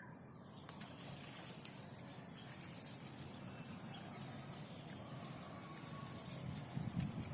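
Faint outdoor ambience with a steady, high-pitched insect drone, like crickets, and a low rumbling background.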